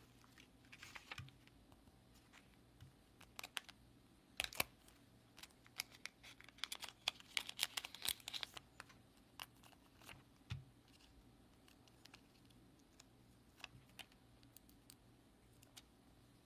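Faint, scattered light clicks and crinkling, like small things being handled. They come thickest a few seconds in, then thin out to a few isolated ticks.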